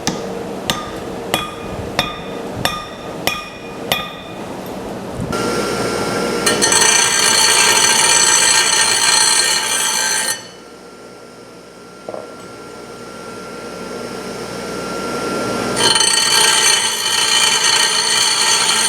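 About six hammer taps, evenly spaced and ringing like metal, drive plugs into the top of black iron pipe resting on a mandrel. A power tool then runs loudly with a steady whine for about five seconds, goes quiet, and starts up again near the end.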